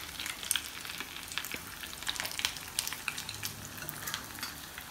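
Egg-coated bread rolls frying in hot oil in a pan over a low gas flame: steady sizzling, full of small crackling pops.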